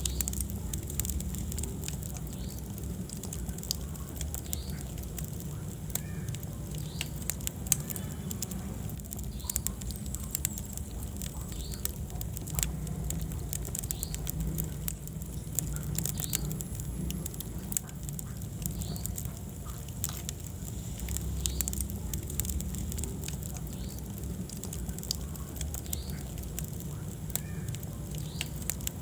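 Wood fire burning in a fireplace: irregular crackling and popping over a steady low rumble of flames, with one sharper pop about eight seconds in.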